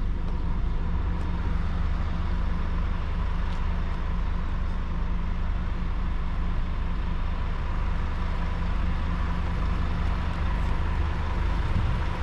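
Scania N250UD double-decker bus's diesel engine idling, a steady low hum that does not change.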